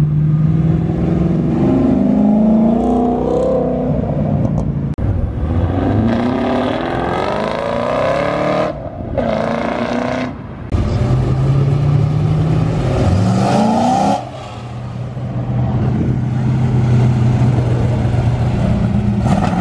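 Several performance car engines revving and accelerating away one after another, each engine note climbing in pitch as the car speeds up, with a few abrupt breaks between the cars.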